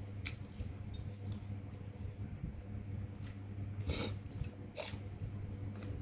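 A person chewing food, with a few sharp clicks and mouth smacks, the loudest about four seconds in, over a steady low hum.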